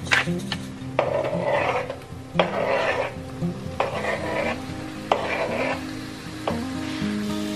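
Diced raw chicken being scraped from a cutting board into a hot stainless steel frying pan of onions and oil, sizzling loudly as each batch lands, about five times at even intervals. Background music with steady notes plays underneath.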